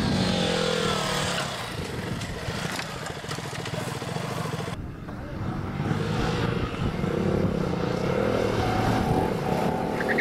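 Sport motorcycle engines running and revving as the bikes ride past, the engine note rising and falling, with a sudden cut about halfway through.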